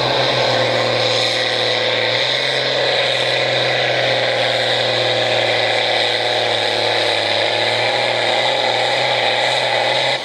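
Farm tractor's diesel engine working under full load as it pulls a weight-transfer sled in a tractor pull, running loud at a steady pitch.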